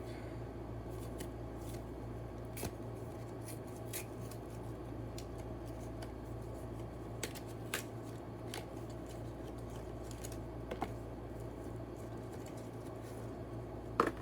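Scattered light clicks and rustles from handling a new plastic 3x3 speed cube and its packaging, with a sharper click near the end, over a steady low electrical hum.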